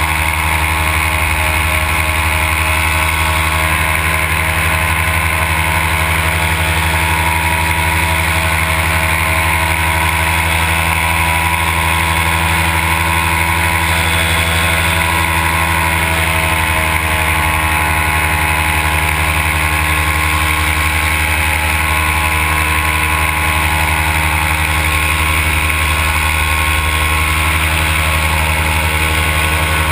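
Paramotor's Simonini two-stroke engine and propeller running steadily in flight, a constant loud drone. Its pitch shifts slightly about halfway through.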